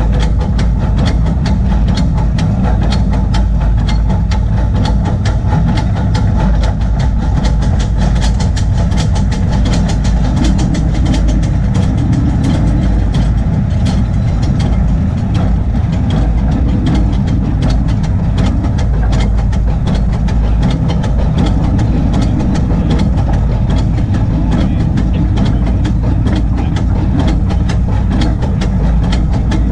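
Coal-fired Crown 4-4-0 24-inch-gauge steam locomotive running along the track, heard from its cab: a steady low rumble with rapid clicking throughout.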